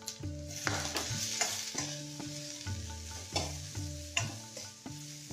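A steel spatula stirs and scrapes sweet corn and grated coconut around a stainless steel kadai, with repeated scrapes and light knocks against the pan and a faint sizzle from the tempering oil. Soft background music plays underneath.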